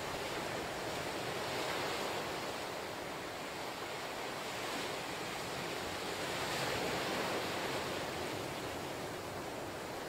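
Ocean surf breaking against lava rocks and washing up over a sandy beach: a steady wash of breaking water that swells and eases. It is loudest about two-thirds of the way in, as a wave crashes on the rocks.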